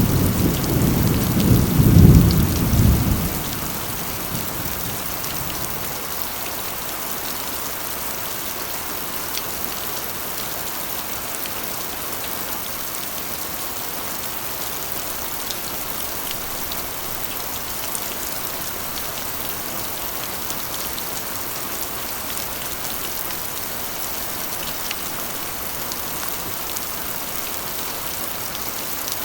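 Heavy rain drumming steadily on a corrugated iron roof. A low rumble of thunder dies away in the first few seconds.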